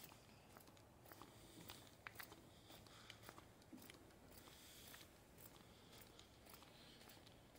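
Near silence, with scattered faint clicks and rustles.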